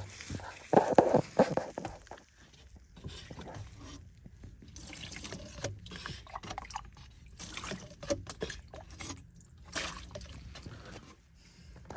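Water trickling and dripping from a leaking air-conditioner drain tray, among scattered clicks and knocks, with a louder noisy stretch about a second in.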